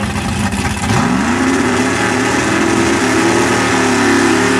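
A drag-race car doing a burnout: its engine revs up sharply about a second in and holds at high revs while the rear tyres spin.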